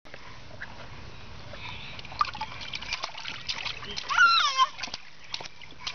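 A baby splashing water with his hands in a plastic tub, with a run of quick slaps and sloshes from about two seconds in. About four seconds in, a high-pitched baby squeal, the loudest sound, lasting about half a second.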